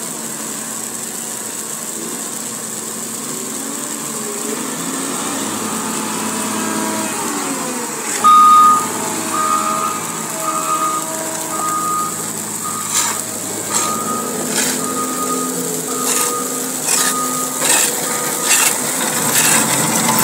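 Motor grader's diesel engine running steadily as the machine spreads hot asphalt with its blade. About eight seconds in, after a brief loud burst, a reversing alarm starts beeping about once a second.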